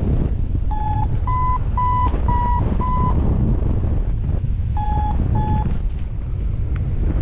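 Strong wind buffeting the microphone with a low rumble, over which a paragliding variometer beeps: five short beeps about two a second, then two more a couple of seconds later. The vario's beeping signals the glider climbing in lift.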